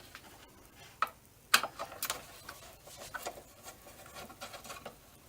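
Irregular small clicks and taps of plastic parts being handled inside an opened car headlight assembly, with a sharper knock about a second and a half in.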